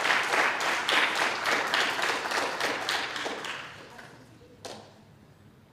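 Small audience applauding, the clapping thinning out and dying away about four seconds in; a single knock follows shortly after.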